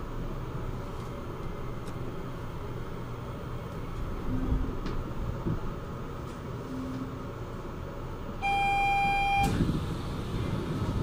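Steady low hum of a Port Liner driverless train standing at its terminal platform. About eight and a half seconds in comes a single loud electronic beep that lasts about a second.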